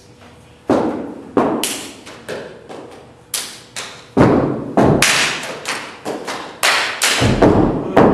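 A step team stepping: a run of sharp stomps and hand claps beating out a rhythm, starting about a second in, each hit ringing briefly in the hall.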